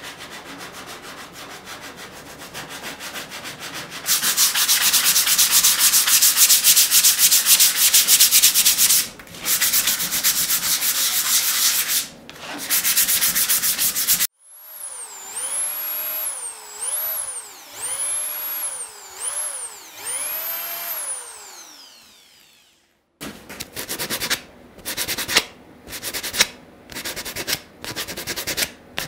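Sandpaper rubbed by hand over plywood, in runs of fast rasping strokes that are loudest in the first half. Midway there is a run of about six squeaks, each rising and falling in pitch. Near the end the strokes become short and separate.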